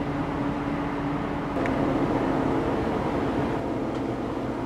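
Large LNG-powered container ship passing close by, its engines and machinery giving a steady low drone with a held tone across the water. The drone gets a little louder and deeper about a second and a half in.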